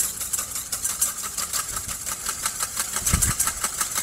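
Wire whisk beating vinegar in a stainless steel bowl in a fast, even rhythm while grapeseed oil is drizzled in, emulsifying it into a vinaigrette. A dull bump sounds a little after three seconds in.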